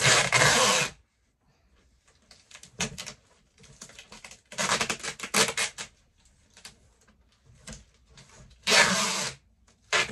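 Brown packing tape being pulled off its roll and stuck around a cardboard box: three loud tearing rips, each about a second long, at the start, about halfway and near the end, with lighter taps and scrapes on the cardboard between.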